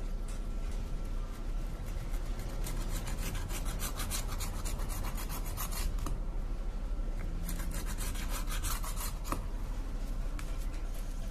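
Gloved fingers rubbing quickly back and forth over the metal midframe of a Realme C3 phone, in two runs of fast strokes with a short pause between them.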